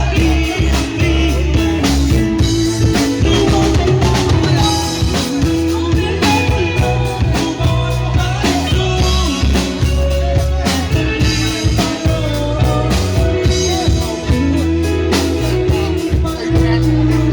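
A song performed by a singer with a band, with drums and a steady bass line under the vocal.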